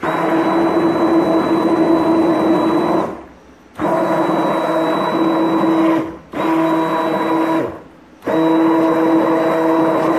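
Stick blender motor running in raw soap batter in a stainless steel pot, a steady whine switched on and off four times in runs of one to three seconds with brief pauses: pulse-blending the oils and lye toward trace.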